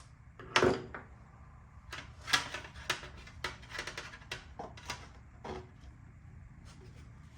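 A series of sharp clicks and knocks, one loud one about half a second in and then a dozen or so irregular ones over the next few seconds, as tools and small engine parts are handled and set down on a work surface.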